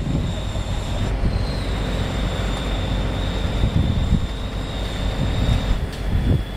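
Heavy lifting machinery running with a steady low rumble and a steady high-pitched whine.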